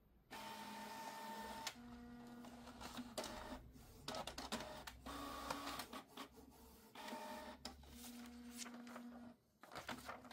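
Canon PIXMA TR4750i inkjet printer printing a two-sided test page: its motors whir in stop-start runs of one to three seconds, with clicks between runs, and stop near the end.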